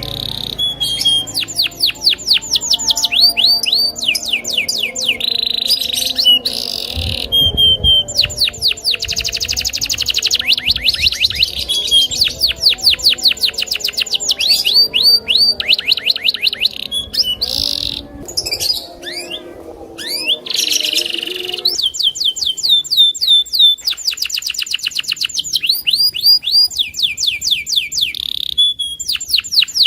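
Domestic canary singing hard in a long, unbroken song of rapid trills: strings of fast, repeated downward-sweeping notes that switch to a new phrase every second or two.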